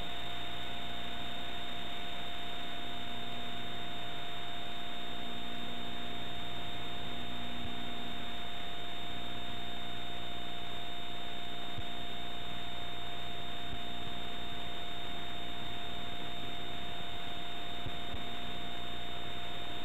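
Steady electronic playback noise with no programme sound: an even hiss and low hum, with two steady whining tones, one mid-pitched and one high.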